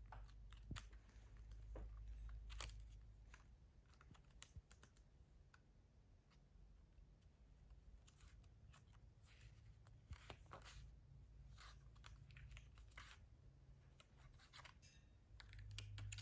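Faint paper rustling and small irregular clicks as a capuchin monkey handles and turns the pages of a hardcover book, thickest in the second half, over a low steady hum.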